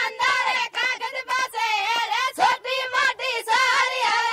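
A song on the soundtrack: a high-pitched voice sings a winding, ornamented melody with vibrato over a steady accompanying tone.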